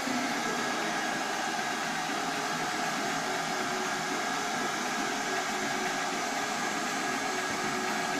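CNC router spindle running steadily with a high-speed whine while its bit mills along the edge of a wooden panel.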